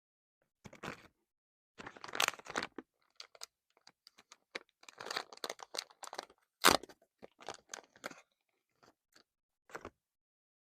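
Crinkly packaging of a random masking tape being handled and torn open in short, irregular bursts of crackling and tearing, with one sharp, louder crack near the middle.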